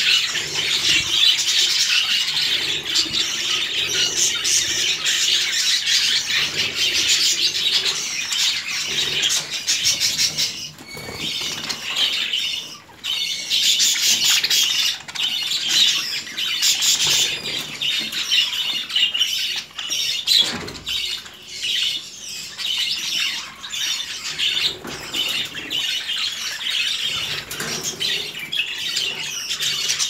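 A flock of budgerigars chattering, many overlapping chirps and warbles at once, with wing flutters among them; the chatter dips briefly about halfway through.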